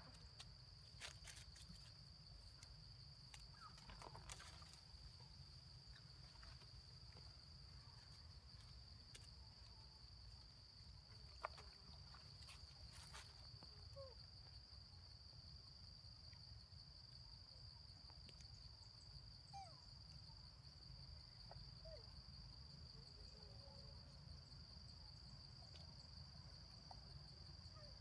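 Faint, steady high-pitched insect drone, with a low rumble underneath and a few scattered light clicks and rustles.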